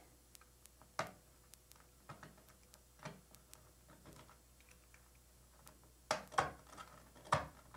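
Utility knife blade scraping and chipping crumbly old grout out of a tile joint at the bathtub edge: scattered small clicks and scratches, with a run of louder scrapes near the end.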